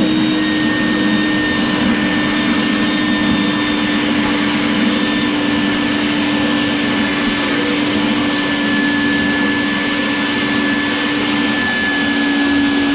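Vacuum cleaner motor running steadily at full speed with a constant whine, used during toilet repair work.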